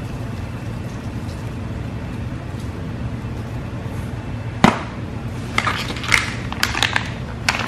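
A single sharp click about halfway through, then a plastic bag crinkling and rustling in bursts as a hand reaches into it, over a steady low hum.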